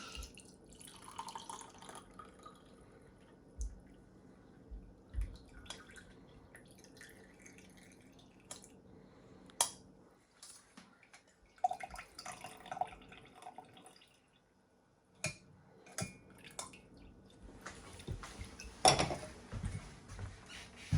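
Tea being strained into cups: liquid trickling and dripping, with scattered light clicks and knocks of the strainer and cups, and a louder burst of sound about two seconds before the end.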